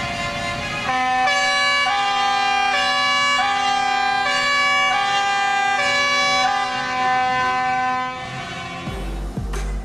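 A tune of held, horn-like chords, each note changing about every second. Near the end a drumbeat and band music come in.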